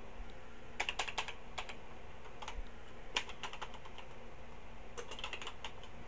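Keys of a Tandy TRS-80 Color Computer 2 keyboard clicking as a line of text is typed, in short runs of keystrokes with pauses between them.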